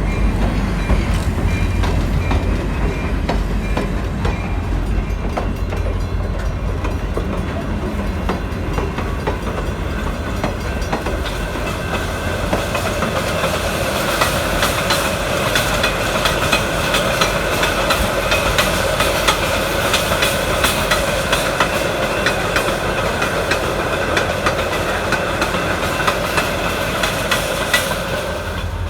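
Train running along the track: a steady rumble with many sharp clicks of the wheels on the rails, and a steady whine that comes in about halfway through.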